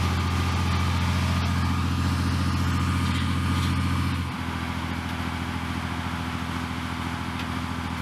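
Heavy tracked military vehicle's engine running at a steady speed. About four seconds in it cuts abruptly to a slightly quieter engine sound with a different pitch.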